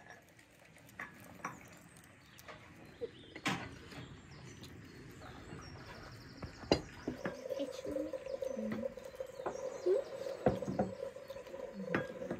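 Scattered clinks and taps of tea glasses, saucers and plates on a wooden table, with a few faint short chirps. About halfway through, a steady tone sets in and holds.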